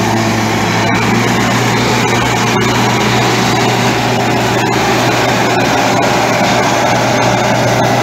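Massey Ferguson tractor powering a KSA straw reaper at work in wheat stubble: the tractor engine and the reaper's cutting and blowing mechanism make a steady, loud mechanical drone with a constant low hum.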